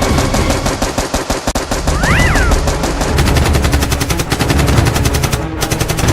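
Rapid automatic gunfire, a machine-gun sound effect firing about ten shots a second, with a short break near the end.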